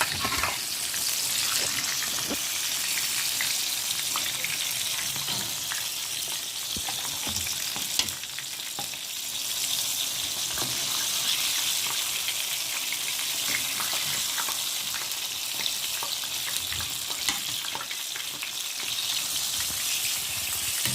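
Eggplants frying in hot oil: a steady sizzle, with scattered clicks and knocks as they are turned and lifted out, the sharpest knock about eight seconds in.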